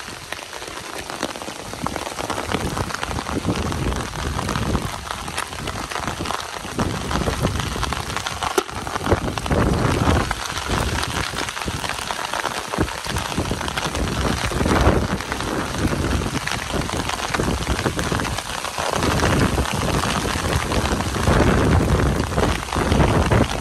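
Heavy rain falling steadily: a dense hiss of drops with uneven low rumbling underneath.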